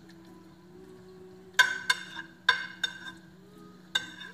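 A metal spoon clinking against a baking dish about five times, starting about a second and a half in, as meat filling is spooned in, over a steady low hum.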